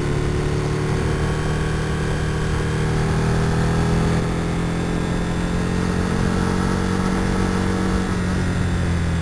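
2004 Aprilia RSV R Factory's V-twin engine running under way, its note climbing gently for several seconds and shifting about eight seconds in.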